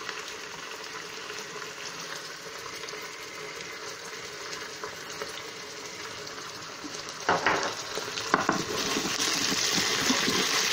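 Onions and ginger-garlic paste sizzling in hot oil in an Instant Pot's steel inner pot on high sauté, stirred with a wooden spoon. A couple of sharp knocks come about seven and eight seconds in, and the sizzling grows louder near the end as the paste hits the oil.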